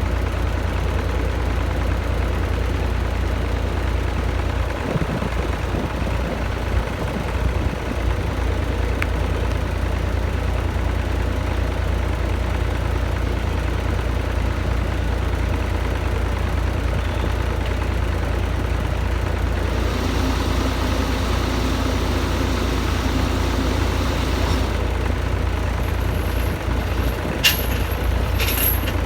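Heavy diesel equipment engine running steadily, with a few short, sharp high squeaks near the end.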